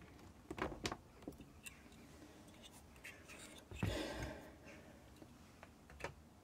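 Handling noises on a workbench: a few light clicks and knocks, then about four seconds in a brief rushing sound with a dull thump, as equipment is moved and set up.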